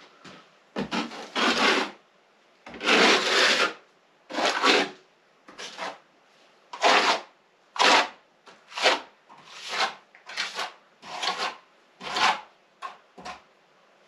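A hand plastering tool rubbing and scraping over hemp-lime plaster on a wall, in about a dozen separate strokes, each under a second, at an uneven pace.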